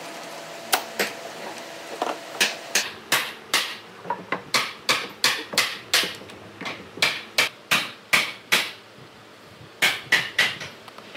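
A fast series of sharp hammer blows, about two to three a second, with a short break near the end before a few more strikes.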